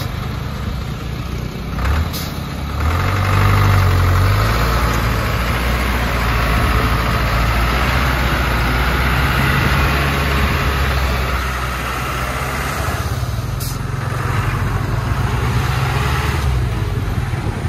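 Diesel engine of a loaded Trường Giang dump truck working under load as the truck drives off a muddy track. The engine note rises and gets louder about three seconds in, then changes pitch again in the last few seconds.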